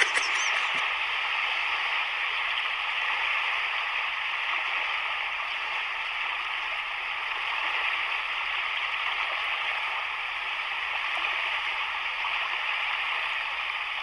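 Steady rushing of sea water on a rocky shore, swelling only slightly, with no single wave breaking out from it.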